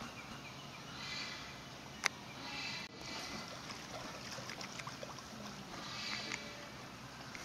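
Water splashing and sloshing in several surges as a Malayan tapir rises from lying in its pool and moves about in the water. A single sharp click just after two seconds in is the loudest moment.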